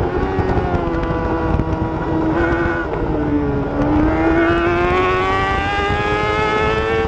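Motorcycle engine running at high revs, its pitch sinking for about three seconds and then climbing steadily again.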